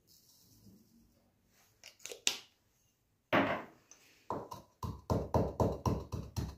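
Wooden pestle pounding coarse cumin seeds in a small wooden mortar: short, sharp strikes about four a second, starting about four seconds in after a few scattered knocks.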